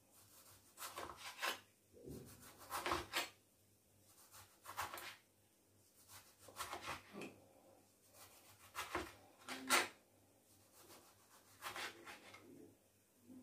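Knife slicing a tomato into rounds on a plastic cutting board: short rasping strokes as the blade saws through, in groups a second or two apart, the sharpest one about ten seconds in.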